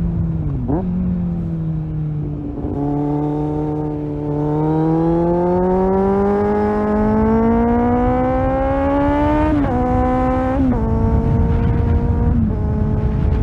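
Kawasaki Z800 inline-four with a Tiger aftermarket exhaust pulling through a gear, its pitch rising steadily for about five seconds. Then come three quick upshifts, each a sudden drop in pitch, about a second apart, with wind and road rumble underneath.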